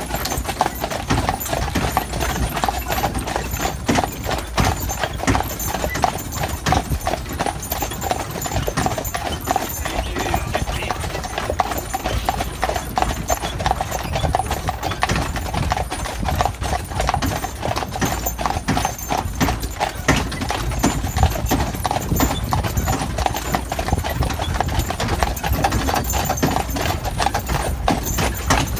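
Hooves of a pair of carriage horses clip-clopping steadily on a paved lane as they pull a horse-drawn carriage.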